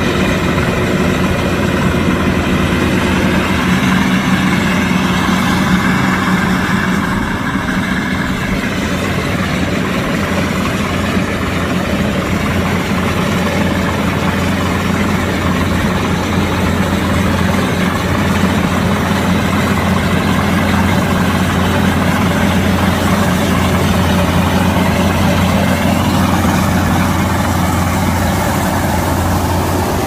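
Kubota DC-108X combine harvester's diesel engine running with a steady low drone, its pitch wavering slightly in the first several seconds.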